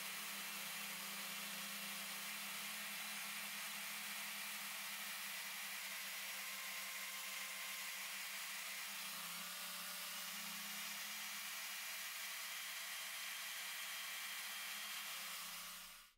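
A small power tool spinning a foam polishing pad against painted sheet metal, buffing car polish into black paint with a steady whir and hiss. It stops abruptly near the end.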